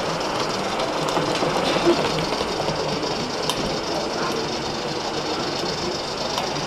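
Gauge 1 live-steam model locomotive running along the track: a quick, even mechanical clatter of its wheels and exhaust, with small clicks.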